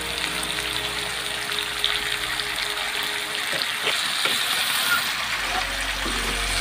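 Chicken, potatoes and fresh-cut pumpkin stems sizzling in hot oil in a kadai, with a few sharp crackles.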